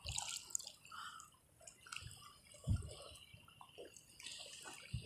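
Water dripping and splashing in shallow sea water as a fishing net is handled by hand, with small scattered splashes and one low thump about two and a half seconds in.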